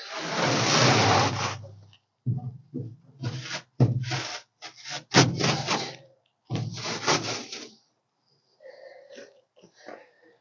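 Old carpet and padding being ripped up off a truck cab's floor, tearing free from the glue that holds it down: one long rasping tear, then a run of shorter rips.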